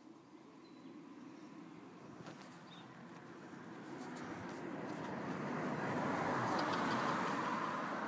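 A vehicle passing by: its noise builds gradually over several seconds, peaks near the end, then starts to fade.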